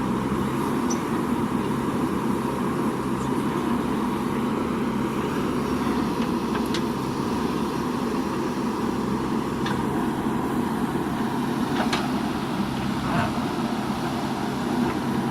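Diesel engine of a JCB 3DX backhoe loader running steadily at working speed, with a few brief clicks or knocks scattered through it.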